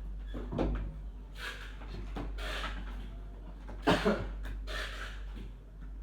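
Handling noises: a few short knocks and clatters, the loudest about four seconds in, with brief rustling between.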